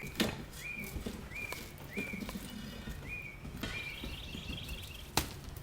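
A bird calling repeated short, rising chirps, with a brief fast trill in the middle. Light clicks are scattered through it, and a single sharp knock comes near the end.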